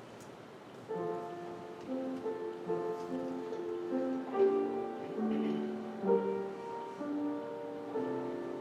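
Soft instrumental piano music begins about a second in: a slow melody over held chords.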